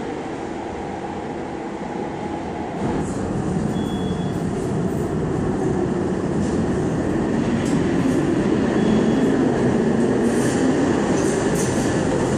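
Budapest Metro Line 1 train running into the station, its rumble of wheels on rail stepping up after about three seconds and growing louder. Short high wheel squeaks come through near the middle and end.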